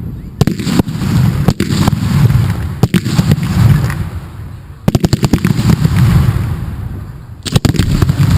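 Fireworks display shells firing and bursting at close range: single sharp cracks, then a rapid volley near the middle and another near the end, with rumbling booms between.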